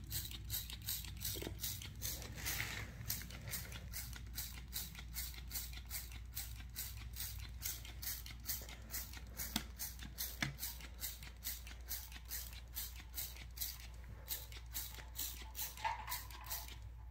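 Hand-held trigger spray bottle pumped rapidly, about three squirts a second, each a short hiss of spray onto metal.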